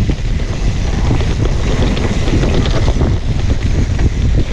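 Wind buffeting a mountain bike's handlebar-view camera microphone at speed, over the rumble of knobby tyres rolling down a dry dirt trail, with frequent small rattles and clicks from the bike over the bumps.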